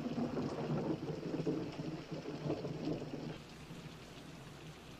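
A long roll of thunder over steady rain; the thunder dies away after about three seconds, leaving the rain.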